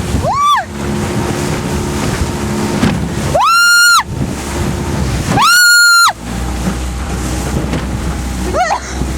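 Honda BF20 outboard running and wind buffeting the microphone as a small aluminium boat crosses rough, choppy sea. Over this come four high-pitched squeals, each rising, holding and falling within about half a second. The two loudest are about three and a half and five and a half seconds in, and the last one near the end falls away.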